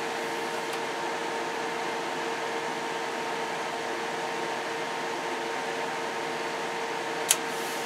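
Steady hum and hiss of running bench test equipment, with one short click near the end.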